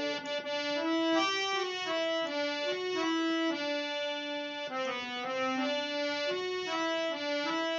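Harmonium playing an instrumental melody of held notes that step from one to the next about every half second, with no singing.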